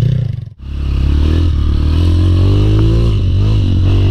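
Trail motorcycle engine running. The sound cuts out sharply for a moment about half a second in, then the engine note comes back, climbs a little and holds steady.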